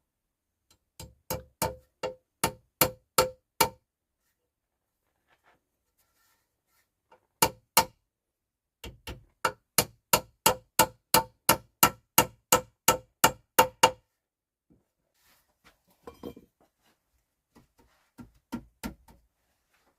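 A series of sharp strikes at about two a second, each with a short ringing tone, as of repeated hammering blows. They come in runs separated by pauses, loudest through the middle, with fainter strikes near the end.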